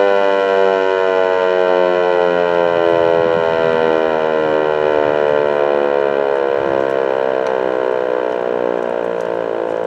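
American Signal T-121 electromechanical outdoor warning siren sounding its full-alert steady tone. It is winding down: its pitch falls slowly and steadily and it grows a little quieter.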